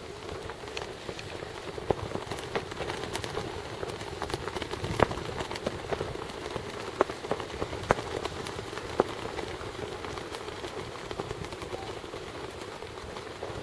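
Steady outdoor hiss, dotted with many small irregular clicks and crackles.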